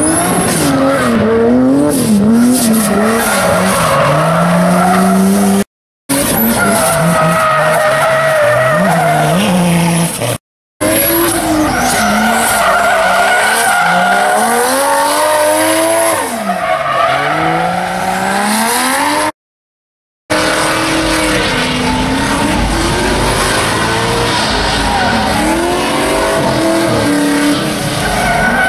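Drift cars sliding through a corner, engines revving up and down hard while the rear tyres squeal and screech in wheelspin. The sound drops out briefly three times where the clips are cut together.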